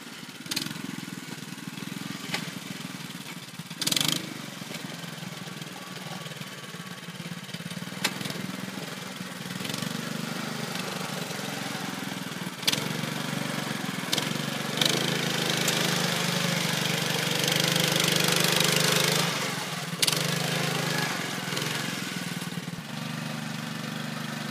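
Small 5.5 hp engine of a JärnHästen tracked carrier running steadily as it hauls a moose on its sled, louder for a few seconds past the middle. A few sharp knocks come over the engine.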